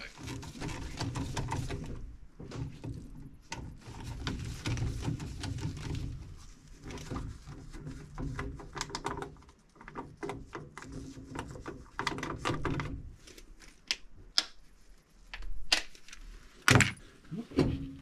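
Irregular clanks, knocks and scraping of gloved hands working inside a sheet-metal furnace cabinet, with a few sharper, louder knocks in the last few seconds.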